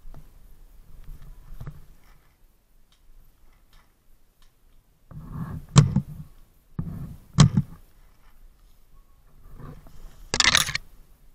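Two sharp paintball marker shots about a second and a half apart, set among low thumps. Near the end comes a loud half-second burst of harsh noise.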